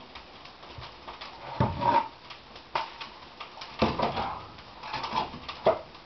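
Split firewood logs being loaded by hand into a wood-burning stove's firebox, knocking against each other and the steel in a handful of irregular thuds.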